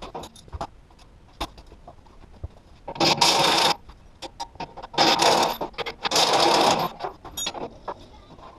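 Cordless impact driver running in three short bursts of under a second each, the second and third close together, with small clicks and knocks of tool handling in between.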